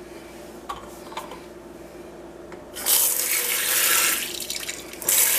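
Kitchen sink sprayer running water onto a gutted trout in the sink, rinsing the body cavity clean. The spray comes on about three seconds in, eases off briefly, then runs again near the end; a couple of faint clicks before it.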